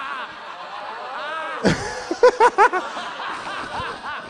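Laughter: a man's laugh in about four quick, loud bursts a little past halfway, over a low murmur of audience laughter and chatter.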